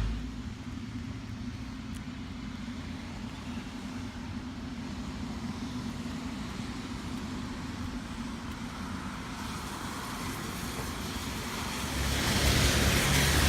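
Road traffic on wet pavement in the rain: a steady low rumble, with a vehicle growing louder from about twelve seconds in.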